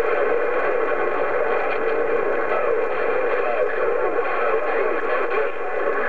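President HR2510 CB radio transceiver on 27.085 MHz playing an incoming transmission through its speaker. The signal is continuous and muddy, with no clear words and its sound squeezed into the middle range.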